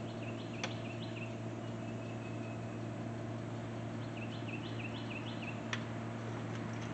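A small songbird singing two short runs of quick, repeated chirping notes, each about a second long, over a steady low hum. Two sharp clicks, one about half a second in and one near the end.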